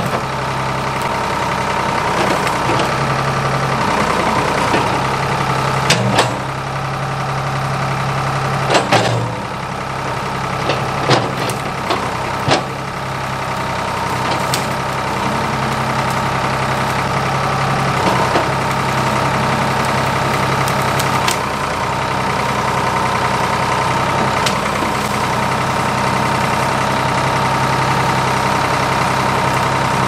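Ford 555 backhoe's engine running steadily as the bucket and hydraulic thumb grab and drag brush. Several sharp knocks and cracks of wood and debris are struck or snapped, mostly between about six and thirteen seconds in.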